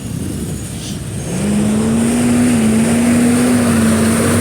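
Car engine and road noise, with a steady engine hum that comes in and grows louder about a second and a half in as the car picks up speed.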